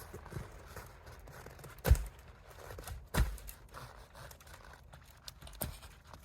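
Heavy thuds of a person jumping on the end of a partly sawn fallen tree trunk, trying to snap it. There are three landings, about two seconds in, a second later, and near the end. The log does not break.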